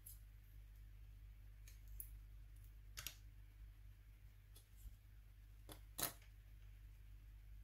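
Faint small clicks and taps of the Nokia N93's camera module parts being handled and fitted together by hand, the loudest about six seconds in, over a low steady hum.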